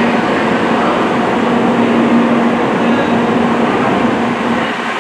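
Shinkansen Class 923 'Doctor Yellow' inspection train running into the station. It makes a loud, steady rush of wheel and air noise with a steady low hum, and the deepest rumble drops away near the end.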